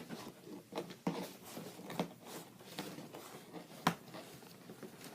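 Packaging being handled and opened by hand: scattered light taps, scrapes and rustles, with one sharper click about four seconds in.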